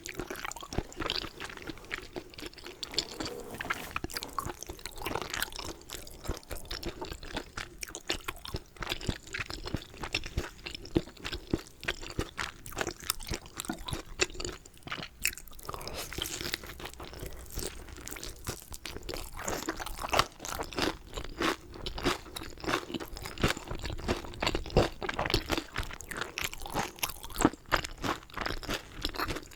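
Close-miked eating sounds of a person chewing and biting food, a steady run of small wet clicks and soft crunches.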